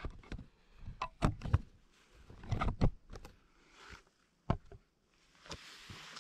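Camping gear being handled: a hard plastic Nalgene bottle and cookware knocked and clinked, a series of sharp knocks and clicks, several in quick succession about a second in and again near the middle, then single ones later.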